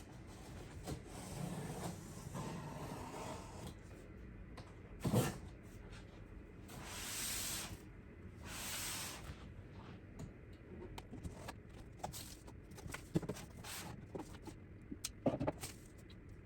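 A PC case being unboxed: cardboard and packing rustling and scraping, with scattered knocks, a thump about five seconds in, and two swishing slides of about a second each shortly after.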